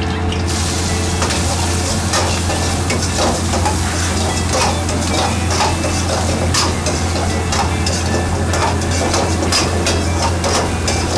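Chopped vegetables sizzling in hot oil in an iron wok while a metal ladle stirs them, scraping and clinking against the pan at irregular intervals. A steady low hum runs underneath.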